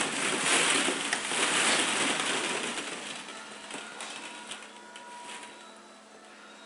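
Plastic ball-pit balls rustling and clacking against each other as a toddler moves through them, dense at first and fading over the next few seconds to a few scattered clicks.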